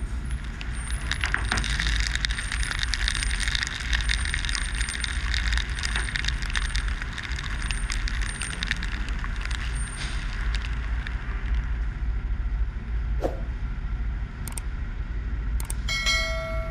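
Car wash water spray hissing and spattering on the car and the camera housing, over a steady low rumble of the wash machinery; the spray thins out about eleven seconds in. Near the end comes a short ringing chime.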